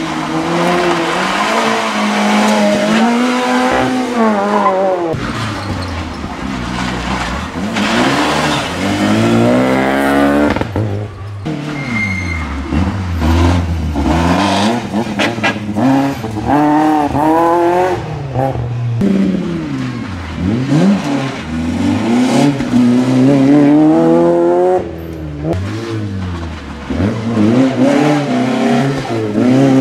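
Several small hatchback rally cars, among them a Suzuki Swift, a Citroën C2 and a Peugeot 106, taking a tight turn one after another: each engine drops in pitch as it slows for the turn, then revs up hard in rising steps through the gears as it pulls away.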